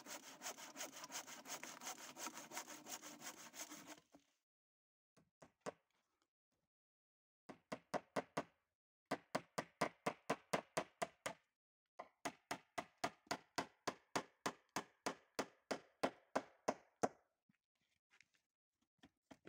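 Wood being cut with a hand saw in quick, even back-and-forth strokes. A steady run of strokes lasts about four seconds, then after a pause come three more spells of sawing, the last about five seconds long.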